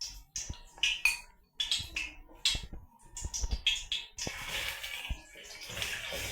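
Onions frying in hot cooking oil in a pan, an uneven sizzle that swells and fades, with a few sharp clicks.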